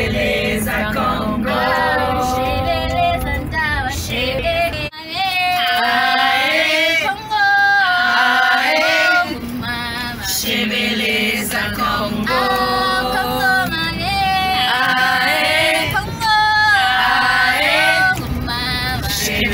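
Women singing together in a group, held melodic notes over a low rumble from the coach bus they are riding in.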